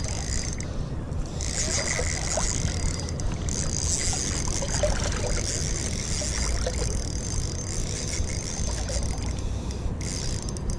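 Steady low wind rumble on the microphone with a high hiss that comes and goes, over river water.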